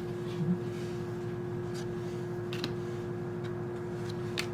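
A few faint, sharp clicks of Magic: The Gathering cards being handled and flipped, over a steady low hum.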